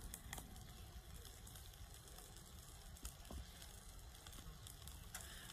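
Near silence: faint outdoor ambience, a low fluctuating rumble under a light crackly hiss with a few small clicks.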